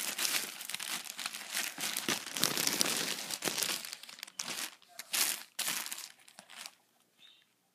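Thin clear plastic bag crinkling as it is opened and a cap is pulled out of it: a dense, continuous crinkle for about four seconds, then a few separate crinkles that die away near the end.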